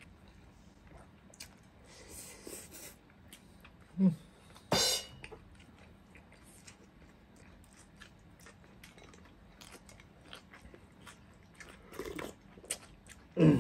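Two people chewing and biting into food with small wet mouth clicks and smacks, with a short loud noisy burst just under five seconds in and a low pitched sound near the end.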